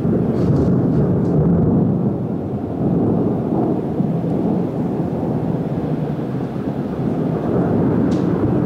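Thunder rolling in one long, low, unbroken rumble that swells and eases.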